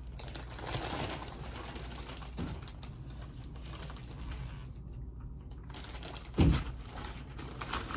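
Plastic shipping packaging rustling and crinkling as it is handled, with one loud thump about six and a half seconds in.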